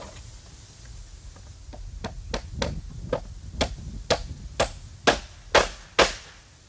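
A regular series of sharp knocks, about two a second, growing steadily louder over some four seconds and stopping after the loudest three, over a faint low rumble.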